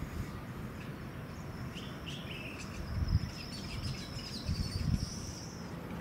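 Natural wetland background: a thin, high, steady insect-like trill with a few short chirps about two seconds in, over low rumbles around three and five seconds in.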